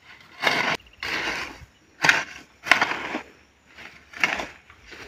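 A hoe blade chopping and scraping through soil and weeds, about one stroke a second, five or six strokes in all.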